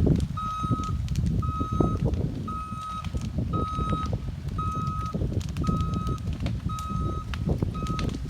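Vehicle reversing beeper sounding a steady single-tone beep about once a second, with wind rumbling on the microphone underneath.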